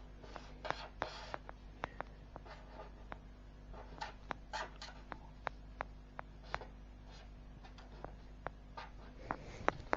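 A diagram being drawn by hand: short scratchy writing strokes with sharp taps between them.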